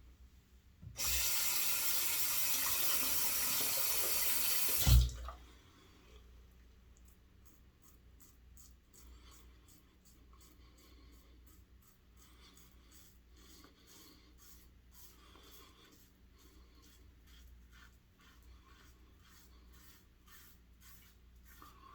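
Sink tap running for about four seconds, ending in a sharp knock, followed by the quiet, rapid scratch of short strokes of a stainless steel adjustable safety razor cutting through two days' stubble.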